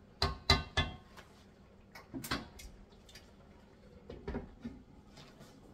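A wooden spoon knocking three times in quick succession against a cooking pot, another knock about two seconds in, then a lid set down on the pot with a softer clatter near the end.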